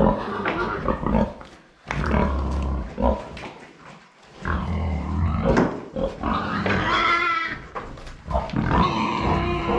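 Pigs grunting in short spells with brief pauses between them, and a higher-pitched call about seven seconds in.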